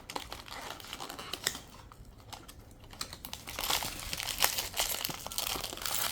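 A blind-box package being opened by hand: plastic packaging crinkling and tearing, with scattered clicks of cardboard and parts being handled. It gets busier and louder in the second half.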